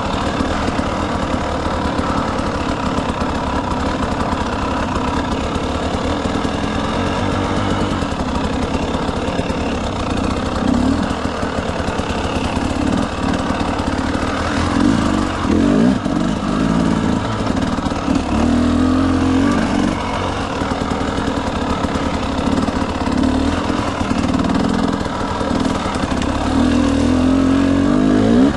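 Motorcycle engine running under changing throttle, its revs rising and falling, with a climbing rev near the end, over a steady rushing noise.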